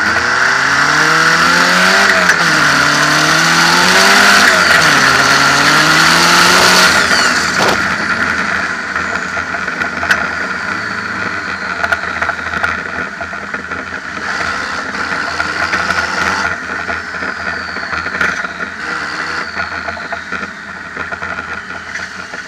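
Turbocharged Mercedes-Benz 200D four-cylinder diesel engine pulling hard under full throttle, its pitch climbing three times with a drop at each gear change, over a steady high whine. About seven seconds in it eases off to a quieter, steadier run, with a few faint falling whistles.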